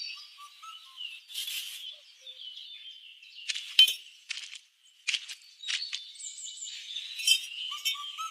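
Light, sharp clinks and short scrapes of small hard pieces, such as miniature bricks and tiny tools, being handled and set in place, coming irregularly. Birds chirp faintly behind them.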